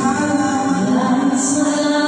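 Singing of a Tagalog love song, the voices holding long, slowly shifting notes.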